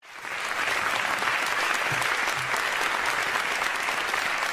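An audience applauding: dense, steady clapping that comes in suddenly and holds level throughout.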